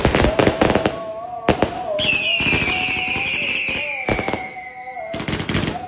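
Fireworks and firecrackers going off in quick crackling bangs, with a whistling firework sliding down in pitch for about three seconds in the middle.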